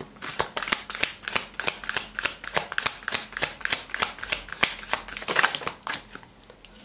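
A tarot deck being shuffled in the hands: a quick run of crisp card-on-card flicks and slaps, heaviest around five seconds in, stopping about six seconds in.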